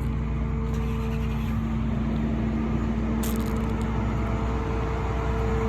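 A vehicle engine running steadily, a low rumble with a steady hum, with a brief high-pitched rasp about three seconds in.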